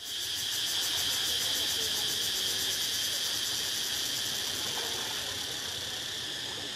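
Steady, high-pitched drone of insects, with a fast pulsing running through it.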